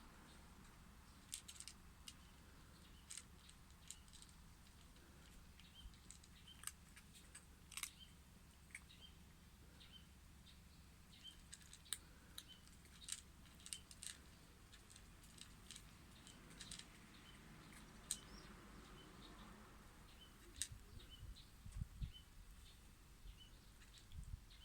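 A small pet crunching dry food, with irregular sharp crunches, faint and close.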